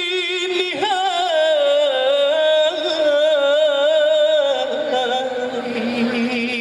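Male solo vocalist singing a long, ornamented Arabic melismatic phrase with heavy vibrato, qasidah-style, holding notes and dropping to a lower held note about two-thirds of the way through.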